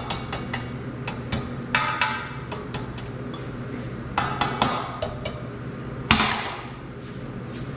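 Small hammer tapping on a steel pipe joint and its sleeve, in short clusters of light metallic taps, to knock the joint into line before tack welding. About six seconds in comes one louder clank with a ringing tail, over a steady low shop hum.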